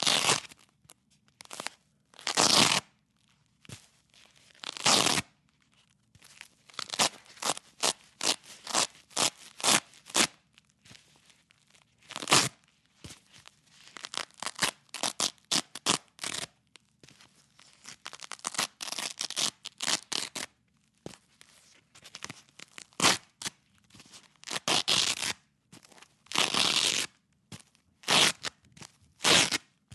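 Velcro strips ripped apart again and again at different speeds: long slow rasping tears alternating with quick short rips.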